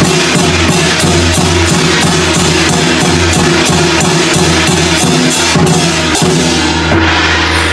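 Loud music with a steady drum beat and sharp cymbal-like strokes about four a second over sustained low tones; the strokes stop near the end.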